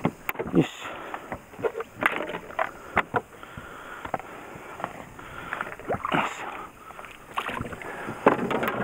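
Water slapping against a small boat's hull, with irregular sharp knocks and clatter on deck as a freshly caught bass is handled aboard.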